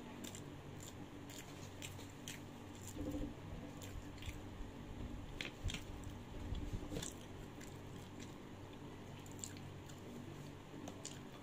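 Close-up chewing and mouth sounds of a person eating, with scattered small sharp clicks, over a steady low hum.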